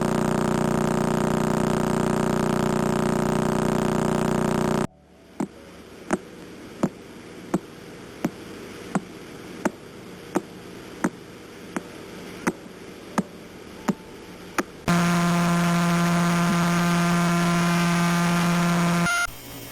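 Pulsar radio pulses converted to audio: a steady buzzing hum, then sharp regular clicks about 0.7 s apart like a ticking clock for about ten seconds, then another steady buzzing tone that cuts off shortly before the end.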